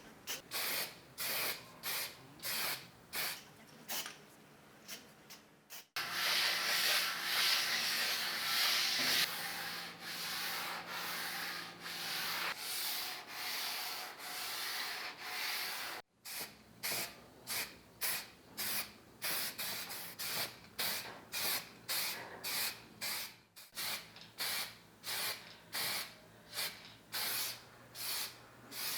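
Hand abrasive rubbing on a rusty typewriter part, in back-and-forth strokes about two a second. A stretch of faster continuous scrubbing comes in the middle, and the sound cuts off abruptly a few times.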